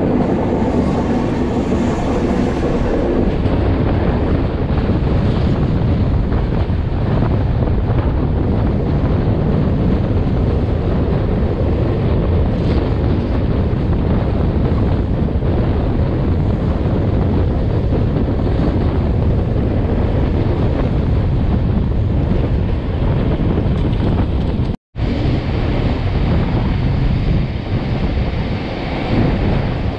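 Durg Humsafar Express passenger train running at speed, heard from on board: a steady rumble of wheels on rail with wind buffeting the microphone. The sound cuts out completely for an instant about 25 seconds in.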